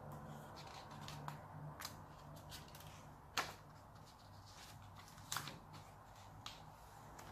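Pages of a picture book being turned and handled: a few short paper rustles and flicks, the loudest about three and a half seconds in and another near the end, over a faint room hum.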